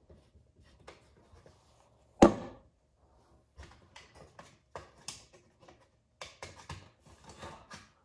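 Hands working a plastic garage door opener wall button against the wall: one sharp knock about two seconds in, then a string of light clicks and taps.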